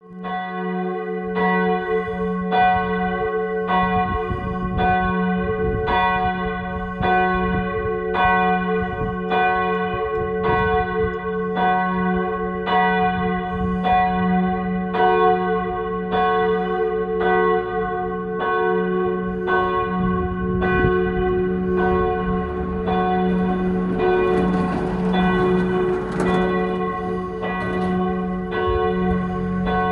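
Church bells ringing, swung for the 6 pm evening peal: evenly paced strikes a little more than once a second, ringing over a steady deep hum.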